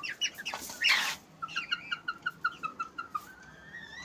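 Hungry young chickens peeping in quick repeated high notes, about five a second, ending in one longer rising call. A brief harsh noisy burst comes about a second in.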